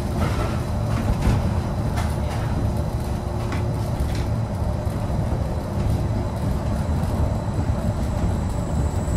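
Disneyland Mark VII monorail running along its beam, heard from inside the cabin: a steady low rumble with a faint steady hum and a few light clicks.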